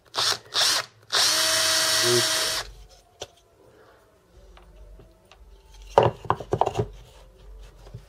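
Electric drill boring a shallow hole in spruce plywood: two short blips of the trigger, then about a second and a half of steady drilling. About six seconds in, a quick run of knocks as the plywood pieces are set down and fitted together.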